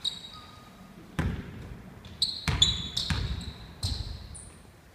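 A basketball bouncing four times on a hardwood gym floor, the thuds echoing in the hall, with short, high sneaker squeaks in between.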